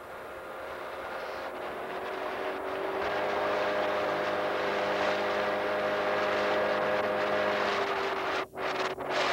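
A motor launch's engine running steadily under a hiss of wind and water. It grows louder over the first few seconds and drops out briefly twice near the end.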